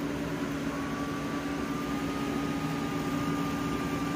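AC Infinity 8-inch inline duct fan running steadily at low speed (level 2), its air rushing out through a 6-inch reducer. There is a steady hum over a hiss of moving air, and a faint high whine comes in about a second in.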